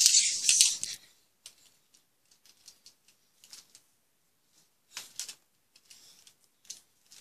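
Rustling and rubbing of a hand or fabric against the microphone of a handheld camera, loud for about a second, then faint scattered clicks and ticks while the lens is covered.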